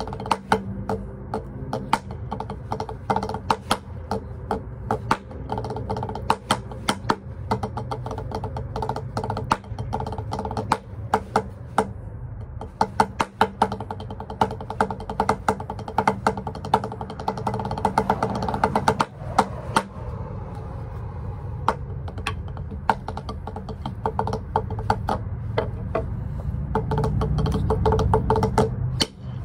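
Drumsticks striking a drum practice pad in a fast freestyle pattern of sharp taps, in quick runs and accents, over a steady low hum.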